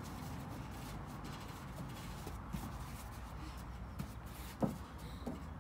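Faint shuffling of bare feet on a wooden deck and gym mat as children dance, with a single soft thump a little over four and a half seconds in, over a steady low background noise.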